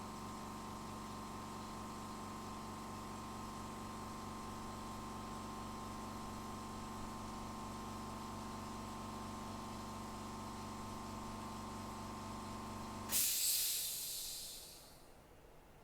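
Steady hum of electrical workbench equipment, a fan or motor with several fixed tones. About thirteen seconds in it cuts off, and a loud hiss of air takes over and dies away within about two seconds.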